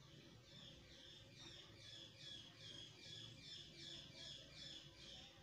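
Faint bird calls: a run of short, quick falling chirps repeated about three times a second, growing louder through the middle and stopping near the end.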